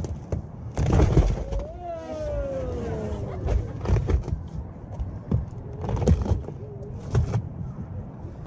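Elephants stomping on and breaking open giant pumpkins: heavy thuds and cracks about a second in and again around six and seven seconds. Between them, a long falling vocal cry.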